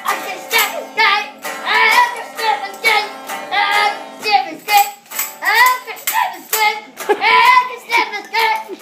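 A child singing a made-up song in short phrases, with tambourine jingles shaken and struck throughout.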